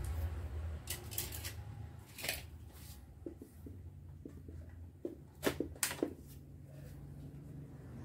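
Scattered light clicks and taps of small hard parts being handled, loudest about five and a half to six seconds in, over a low steady hum.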